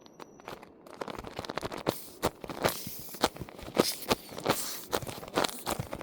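Close handling noises as squishy toys are handled: irregular crinkling and crackling with sharp taps, getting busier from about two seconds in.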